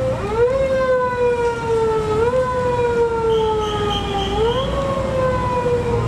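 Siren on a motorcade escort car wailing as the cars pass: the pitch jumps up quickly and then sinks slowly, about every two seconds, over the low running of the cars' engines.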